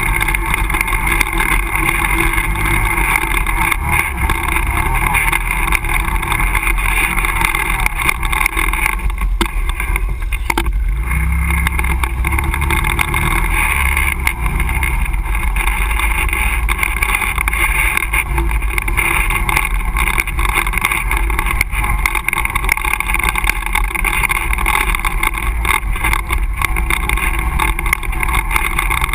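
ATV engine running steadily under way on a rough dirt trail, heard close from a camera mounted on the machine. Its note shifts a little as the throttle changes, with frequent knocks and rattles from the bumps.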